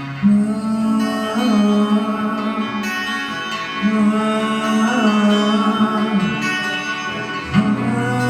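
Slow live worship music with no sung words: sustained chords over a bass note that changes about every two to three seconds, with a wavering melody line above.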